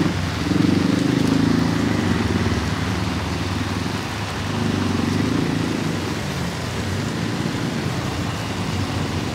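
Steady rain falling on a wet street. The engines of passing vehicles rise and fade twice, once early and once around the middle.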